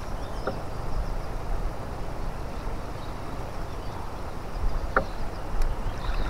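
Landing net holding a pike swished in the river water beside the boat to rinse it: a low, steady wash of water noise, with a couple of faint knocks about half a second in and about five seconds in.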